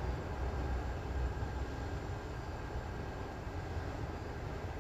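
Steady low hum and hiss of a metro train standing at a station with its doors open, heard from inside the empty car.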